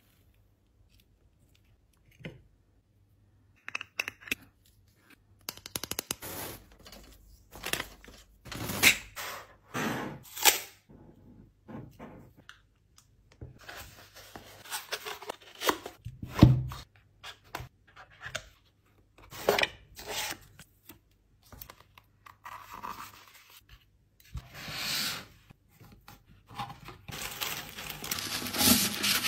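Close-up handling of kraft cardboard packaging: scattered taps, scrapes and crinkles. Near the end comes a dense, steady crackling as honeycomb kraft paper wrap is pulled out and stretched.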